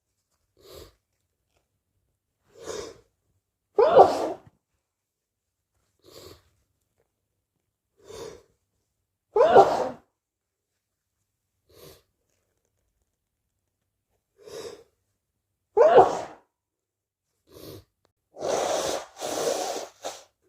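A person with a cold sneezing three times, each loud sneeze preceded by a short, faint intake of breath. Near the end come two longer, hissing blasts of air.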